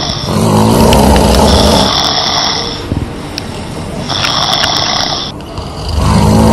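A woman snoring in her sleep: two long, low snores about four seconds apart, the second starting near the end, with a quieter high hiss of breath between them.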